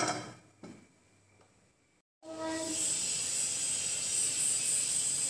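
A steady hiss of food cooking on the stove starts about two seconds in, after a short near-silent gap.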